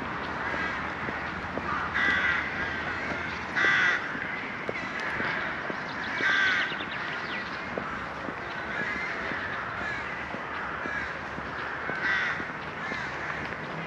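A flock of crows cawing: loud caws about two seconds in, near four seconds (the loudest), around six and a half seconds and about twelve seconds in, over a constant background of many quieter calls.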